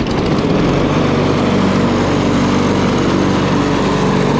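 A Honda HRX217 lawnmower's single-cylinder four-stroke engine catches right at the start and then runs steadily. It is the first run after a new blade has been fitted.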